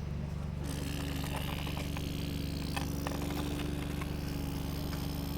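Excavator running steadily: a constant engine drone with a hydraulic whine over it that cuts out briefly and returns a little higher just after the start, and a few light clicks and knocks around the middle.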